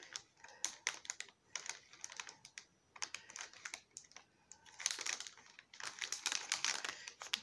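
Clear plastic packaging handled by hand: irregular sharp clicks and crinkles, busiest about five to six and a half seconds in.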